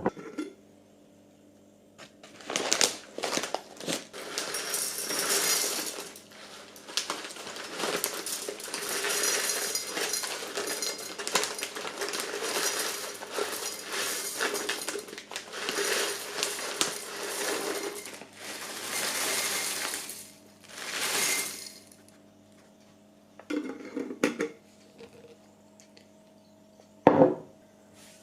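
Household objects being handled, sorted and put down: close rustling with many small clinks and knocks for about twenty seconds, then a few separate knocks, the loudest near the end.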